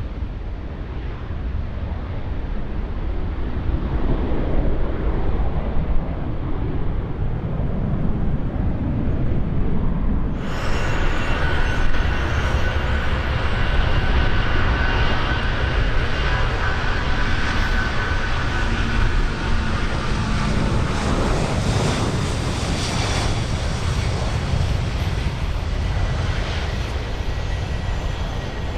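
Jet airliner engines running: a deep rumble with wind on the microphone, then, after an abrupt change about ten seconds in, a steady whine of several high tones over the rumble.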